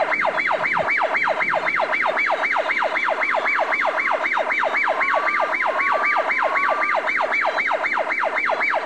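Electronic toy siren sounding steadily, a fast falling yelp that repeats about five times a second.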